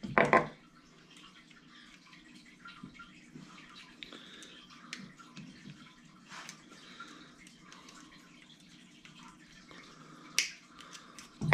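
Faint, scattered small metallic clicks and ticks of a little electrical ring terminal being worked open, with one sharper click about ten seconds in.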